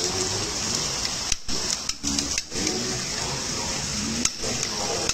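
Steady hiss of a working commercial kitchen, with faint voices in the background; the sound drops out briefly three times.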